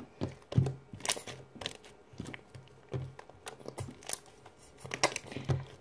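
Slime being kneaded and stretched by hand, giving irregular small clicks and pops.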